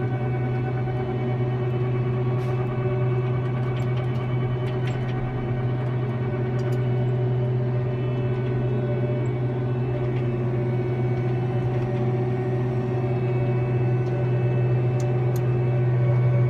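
Hagie STS12 self-propelled sprayer running steadily at work, heard inside the cab: a constant low drone with steady higher tones above it and a few faint clicks.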